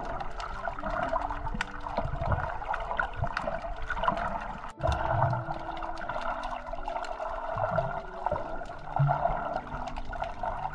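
Underwater sound picked up by a submerged camera over a coral reef: a steady rush of moving water, with many sharp scattered clicks and occasional low thumps.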